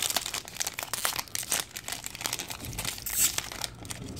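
Foil wrapper of a Panini Diamond Kings baseball card pack crinkling and tearing as fingers work it open, a dense run of crackles with a louder one about three seconds in. The pack is proving hard to open.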